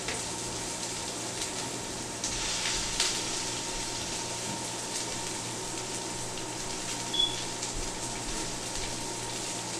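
Steady hiss over a low hum, with a few faint soft clicks of food being handled on a wooden board.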